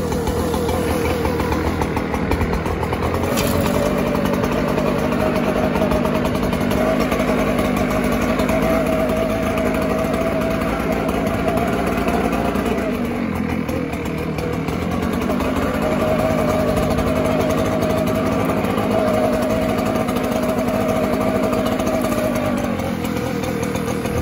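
ECHO gas leaf blower running steadily while blowing mulch, its engine note rising to a higher speed about three seconds in, dropping back briefly around the middle, then rising again before easing off near the end.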